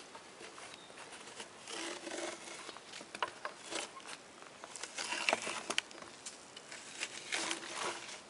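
Old braided rope gasket being peeled and pried out of a wood stove door's gasket channel with a small screwdriver: irregular scratchy tearing and scraping sounds, with a few sharp clicks about midway.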